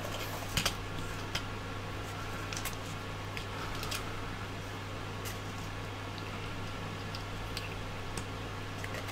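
Scattered faint clicks and taps as the printed plastic X-axis end and its stepper motor are handled and fitted together, over a steady low hum.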